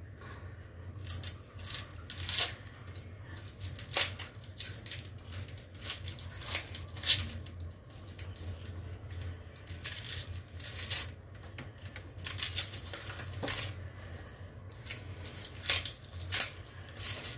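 Dry, papery onion skins being peeled and torn off small onions with a kitchen knife, in irregular crackling rustles, with light taps of onion and knife on a wooden cutting board. A low steady hum runs underneath.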